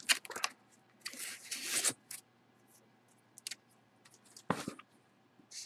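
A cardboard box being handled: a few light clicks, then a scraping rustle lasting about a second, and a short knock near the end.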